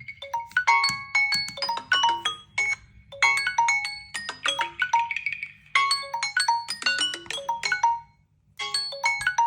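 Smartphone ringtone: a quick marimba-like melody of short struck notes, looping, with a brief pause about eight seconds in before it starts over.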